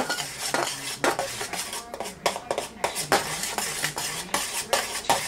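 Butter knife stirring a heating slurry of potassium nitrate, charcoal and sulfur in a stainless steel saucepan, the blade clinking and scraping against the pan's sides and bottom in an irregular run of clicks, several a second.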